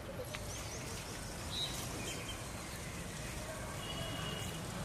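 Outdoor village ambience: a steady low background noise with a few short, high bird chirps, including one held note about four seconds in.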